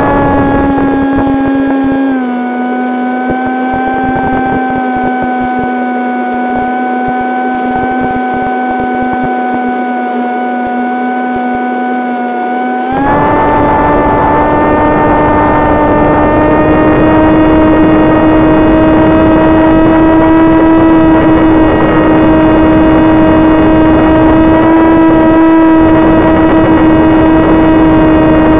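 Electric motor and propeller of an AR Wing 900 FPV flying wing, heard through its onboard camera: a steady whining hum that drops in pitch about two seconds in as the throttle eases, then steps back up about thirteen seconds in and keeps climbing slowly. A rush of air runs under it, fading while the throttle is low.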